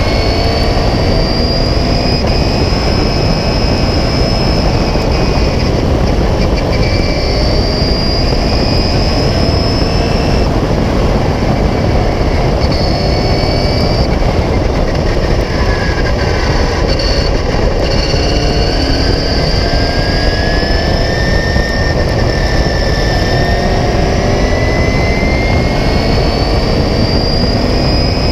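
Open-cockpit racing car's engine heard onboard at racing speed, its pitch climbing through the revs and dropping back at each gear change or lift, over a heavy rumble of wind and road noise.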